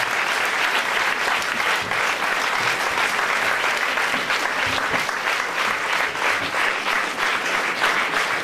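Concert audience applauding steadily: many hands clapping at once.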